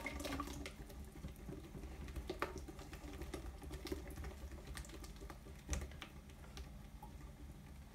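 Wire whisk clicking and tapping irregularly against a glass mixing bowl as melted chocolate and butter are whisked into beaten eggs and sugar, with two louder knocks, one about two and a half seconds in and one near six seconds.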